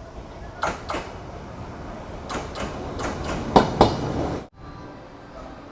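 Two sharp knocks, then a quick run of five or six louder knocks over a steady rushing background, which cuts off suddenly.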